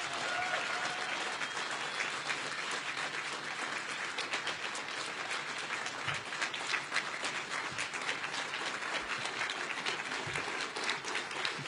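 Audience applauding: dense, steady clapping at the end of a speech.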